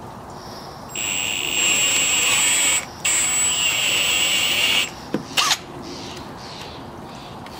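Power drill with a long bit boring into a pressure-treated 6x6 timber: the motor runs under load with a high whine for about two seconds, stops briefly, then runs about two seconds more. It is followed by two short sharp sounds about half a second apart.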